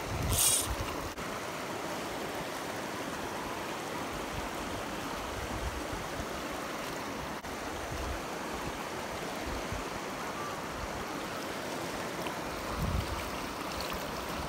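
Steady rush of fast stream water pouring along a stone-walled channel, with a short hissing rustle about half a second in.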